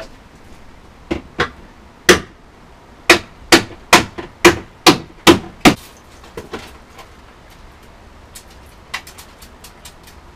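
Sharp blows breaking the remaining laminated safety glass out of an old Aero-screen windscreen frame. There are a few knocks at first, then a run of about seven hard strikes at roughly two or three a second, then a few lighter taps.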